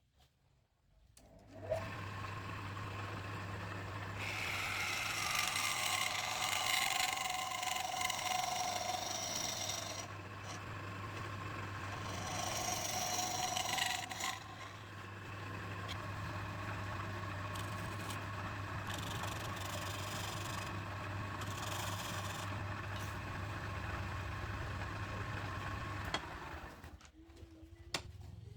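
Electric wood lathe starting up and running with a steady hum, while a turning tool scrapes and cuts the spinning wood in two stretches. The lathe stops near the end.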